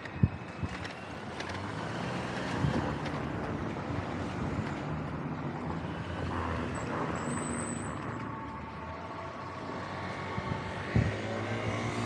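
Road vehicles driving past at close range with engines running. There is a sharp knock just after the start and a smaller one near the end.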